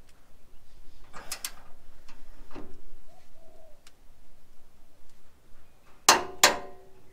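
Click-type torque wrench on an M12 chassis bolt, snapping with sharp metallic clicks as it reaches its 90 Nm setting: a quick double click a little over a second in, a lighter click, then the loudest pair of clicks near the end.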